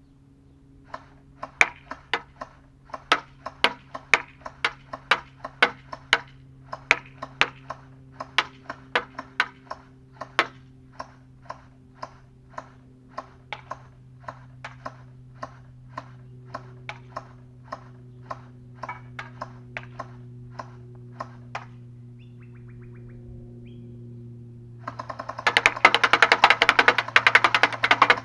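M4 Punisher gel blaster firing single shots, a long uneven string of sharp cracks about two a second that grow fainter and stop. Loud music comes in near the end.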